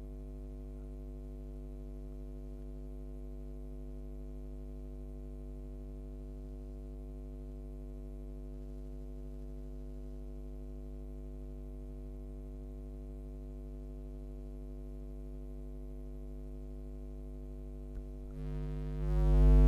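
Steady electrical mains hum, a low buzz with an even stack of overtones and no change in pitch, from the broadcast's sound system. It gets louder near the end.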